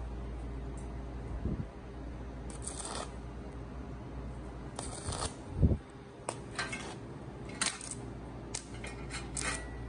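Stick-welding arc crackling in short, broken bursts as a 1.0 mm stainless electrode is struck and re-struck on 0.3 mm sheet at a very low current of about 14 A, at which the arc is hard to strike. A dull thump comes just before the middle, over a steady low hum.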